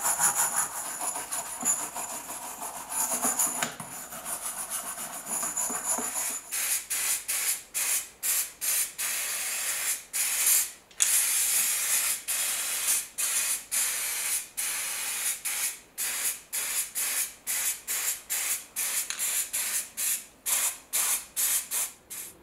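A wire brush scrubbing the metal compass bowl in quick rhythmic strokes for about six seconds, then an aerosol can spraying in many short hissing bursts, about two a second, coating the compass parts.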